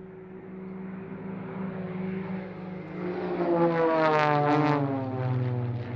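Formation of Extra 330 and Edge 540 aerobatic monoplanes passing close overhead. Their piston engines and propellers grow louder to a peak about four seconds in, then the engine note drops in pitch as they pull up and away.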